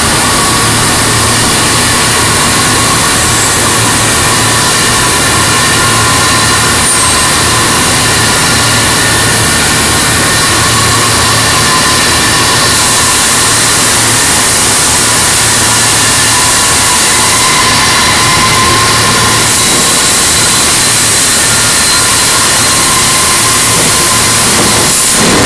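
Overhead bridge crane running as it carries a suspended steel plate: a loud, steady mechanical drone with a faint whine and a low hum.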